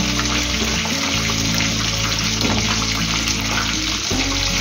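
Coated chicken strips deep-frying in hot oil in an aluminium pot, a steady bubbling sizzle that goes on evenly throughout, with the chicken nearly done and crisp. Background music with sustained notes plays underneath.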